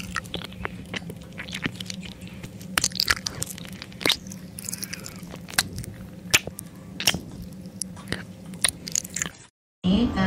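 A Jack Russell terrier biting into a raw red pepper: a quick, irregular run of sharp, crunchy bites. The crunching stops abruptly near the end.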